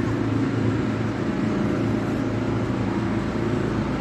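Steady low hum of nearby road traffic and vehicle engines.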